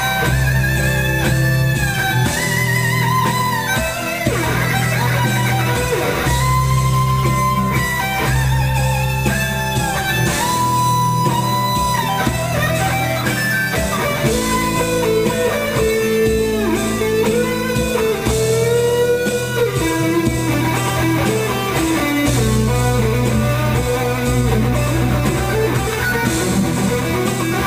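Background music led by guitar: held, wavering melody notes over a steady bass line.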